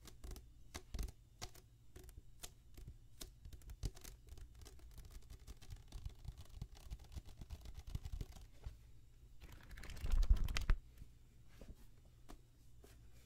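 Fingertips and nails tapping and scratching on the glossy cover of a booklet held close to the microphone, a quick irregular run of small clicks. About ten seconds in comes a louder, short rustle of paper as the pages are handled.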